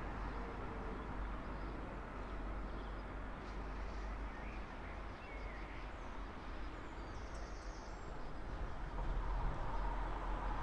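Early-morning street ambience: a steady low traffic rumble that eases off in the middle and swells again near the end as a vehicle approaches, with a few faint bird chirps in the quieter stretch.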